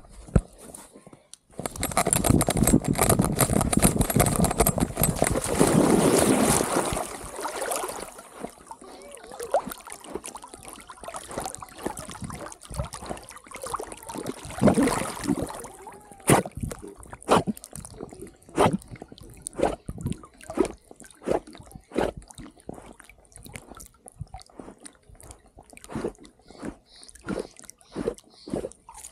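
Dog plunging into a pond and swimming, heard from a camera on its harness just above the water. The first several seconds are loud, continuous splashing; after that comes water sloshing and gurgling around the dog, with irregular splashes from its paddling.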